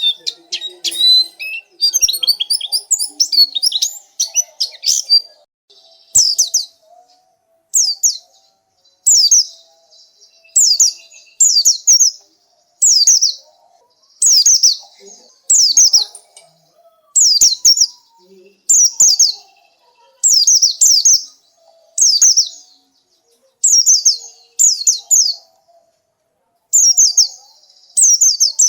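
Pleci (white-eye) song: a fast run of high twittering for the first few seconds, then short, high phrases of quick falling notes, repeated every second or so.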